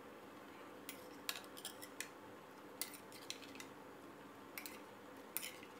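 Metal ladle clinking and scraping lightly against a stainless steel pot as chopped fried egg is lowered into the broth: a scatter of short, light clicks over a faint steady hum.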